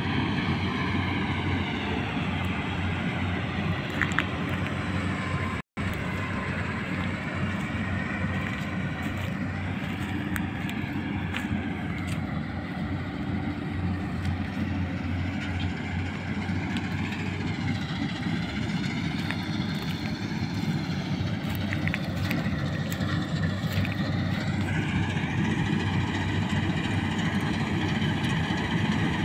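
New Holland combine harvester running steadily while threshing gram, a continuous engine and machinery drone whose pitch dips and rises in the middle. The sound cuts out for an instant about six seconds in.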